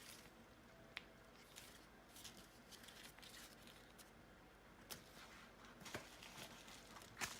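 Faint rustling and a few light clicks and taps of a shipping package and its packing material being handled and opened by hand.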